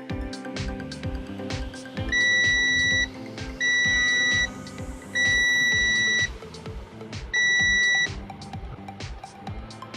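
Background music with a steady beat, with four long, high electronic beeps at one pitch, each about a second long, laid over it; the beeps are the loudest sound.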